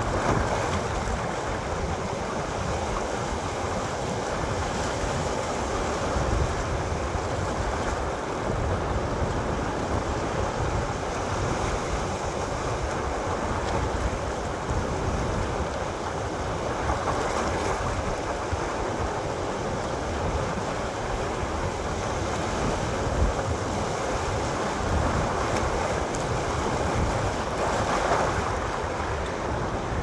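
Sea waves breaking against low rocks and washing over a rocky shore: a steady wash that swells now and then as a bigger wave breaks.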